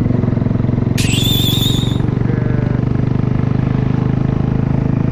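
Mutt motorcycle's engine running steadily at a cruising pace, picked up by a handlebar-mounted camera. About a second in, a brief high warbling whistle rises in and cuts off a second later.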